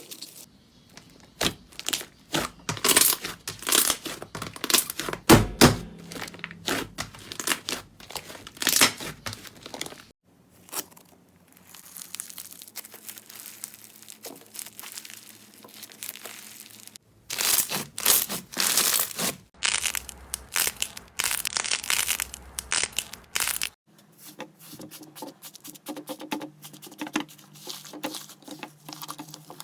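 Slime being pressed, squeezed and poked by hand, giving dense runs of crinkling, crackling pops. The sound comes in several separate clips that change abruptly about 10, 17 and 24 seconds in.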